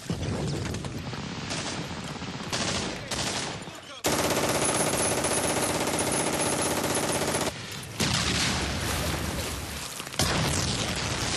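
Battle soundtrack of sustained machine-gun and rifle fire, a continuous barrage. It cuts abruptly between quieter, muffled stretches and louder ones several times, loudest from about four to seven seconds in.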